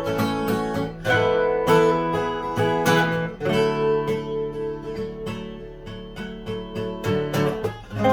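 Acoustic guitar played solo, tuned EADGBD with a capo at the second fret: a quick run of plucked melody notes ringing over low bass notes.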